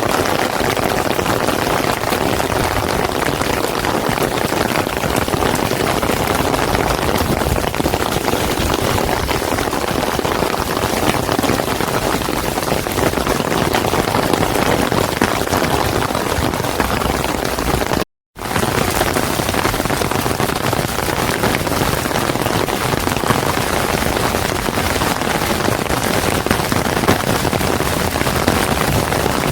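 Steady rain falling and splashing on hard surfaces, a dense, even patter. The sound drops out completely for a moment about two-thirds of the way through.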